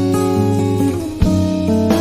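Background music led by a plucked guitar, with notes changing every fraction of a second and a sharp accented stroke a little past the middle.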